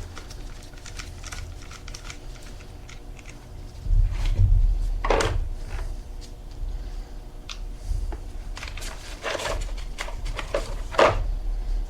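Small clicks, taps and clinks of hand work on a motorcycle battery and its cable terminals, with a louder knock about four seconds in and a cluster of knocks and scrapes near the end, over a faint steady hum.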